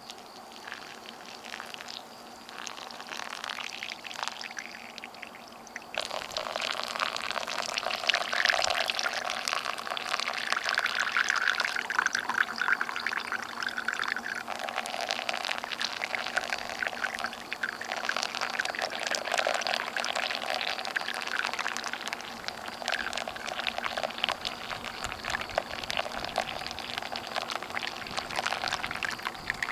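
Hot water being poured slowly from a kettle onto coffee grounds in a flannel drip filter. It starts about six seconds in and then runs on as a continuous pouring sound.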